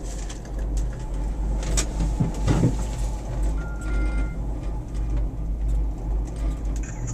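Steady low rumble of a gondola cabin riding up its cable, with a brief louder knock about two and a half seconds in and a short faint high squeak about four seconds in.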